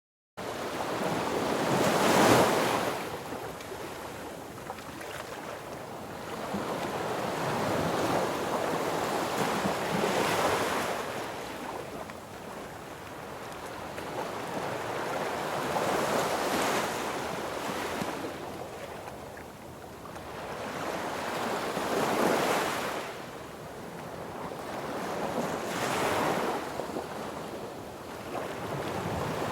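Sea waves breaking and washing up on a beach, swelling and easing every four to eight seconds. The sound cuts in abruptly out of silence at the very start.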